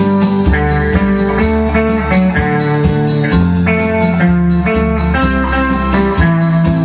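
Electric guitars played through amplifiers: a clean, melodic instrumental lead of held notes over a steady low bass line.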